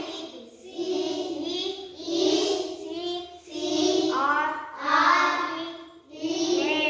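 A young girl's voice reading single English words aloud off a list one at a time, each word drawn out in a sing-song way, about six words with short pauses between them.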